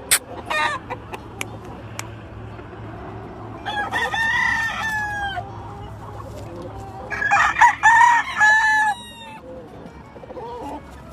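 Gamefowl roosters crowing twice: one crow about four seconds in, then a louder, overlapping round of crowing around seven to nine seconds in. A few short sharp sounds come near the start.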